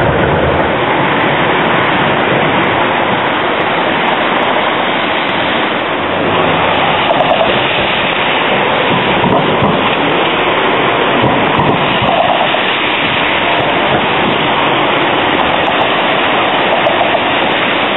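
Street traffic on a wet road: a steady hiss of tyres and wheels on wet tarmac as a low-floor tram passes, with cars and a van following.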